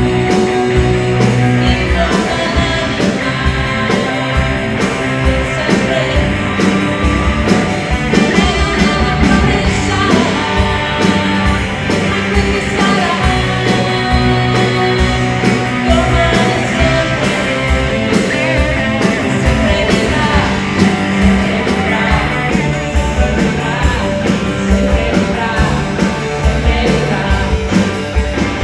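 Live rock band playing: drums, bass and electric guitar, with a voice singing over them.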